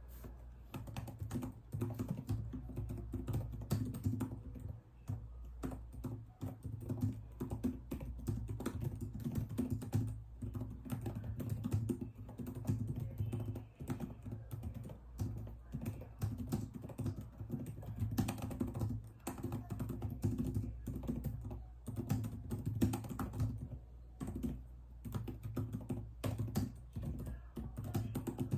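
Computer keyboard being typed on continuously at a steady practice pace: dense, irregular key clicks with brief pauses, over a low steady hum.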